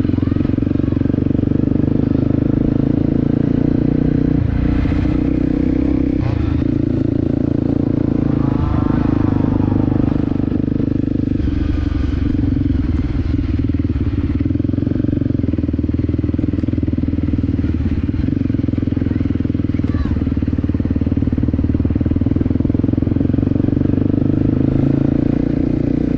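A vehicle's engine running steadily while travelling along the road.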